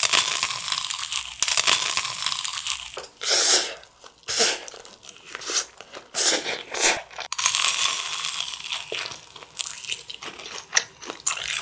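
Close-miked eating: a fried cheese ball crunching as it is bitten and chewed, then several short slurps of spicy stir-fried instant noodles, then more crunchy chewing with small clicks near the end.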